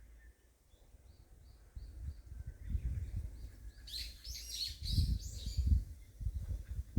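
Small birds chirping: a faint run of short, even chirps, then a busier burst of chirping about four seconds in. Under it, from about two seconds in, irregular low rumbling and thumps.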